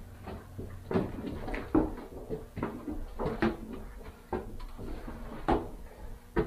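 Footsteps climbing old wooden stairs: about seven separate knocking steps on the treads, roughly one a second.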